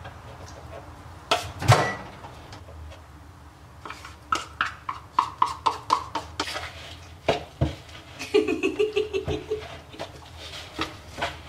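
A spoon knocking and scraping in a plastic mixing bowl as cookie batter is stirred, in a run of sharp clicks and taps, with a couple of loud knocks near the start. Short pitched vocal sounds come in twice, around the middle and about two-thirds through.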